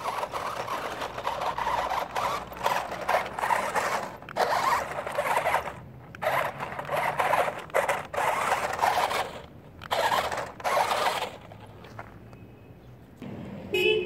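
RC truck crawling over loose rocks and gravel. Its tyres and drivetrain make rough scraping, crunching noise in uneven stop-and-start bursts that follow the throttle.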